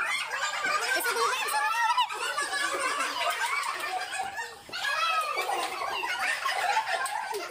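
A room full of people laughing loudly together, with overlapping excited voices and a short lull about four and a half seconds in.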